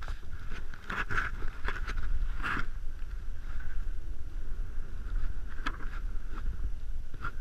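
Wind rumbling on an action camera's microphone while riding downhill through snow, with the camera rider's own sliding on the snow making a steady hiss and crunching scrapes about a second in, again around two and a half seconds, and near six seconds.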